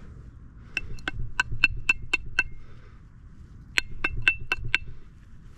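Sharp metallic clinks in two quick runs, about seven and then five strikes, each with a brief ring: metal being tapped against metal while an iron find is dug out.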